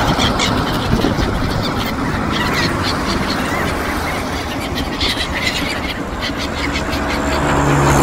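Steady traffic noise of vehicles crossing a road bridge, with engine hum, and scattered short calls of a flock of gulls over it. A louder engine hum comes in near the end as a vehicle passes close.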